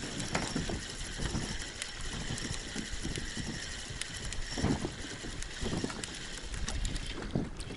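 Wind buffeting the microphone in an open boat, with irregular small knocks and rustles.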